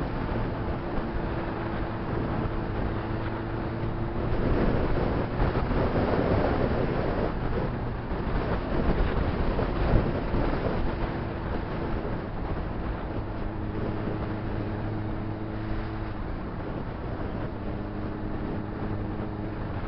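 Honda CBR600RR's inline-four engine running at steady revs while riding, with wind noise on the microphone. The wind and engine grow louder and rougher from about four to eight seconds in, and the steady engine note returns in the second half.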